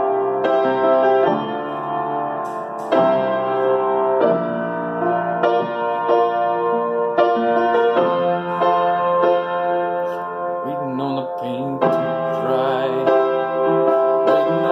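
Upright piano played by hand: a run of chords and melody notes that change every second or so.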